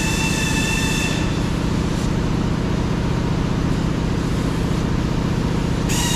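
Steady mechanical drone with a low rumble and a high whine; the whine stops about a second in and comes back near the end while the rumble runs on.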